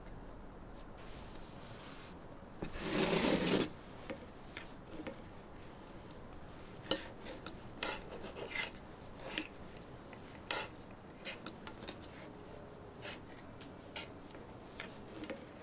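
A rasping scrape lasting about a second, then scattered clicks and scrapes of a fork against a metal frying pan as someone eats from it.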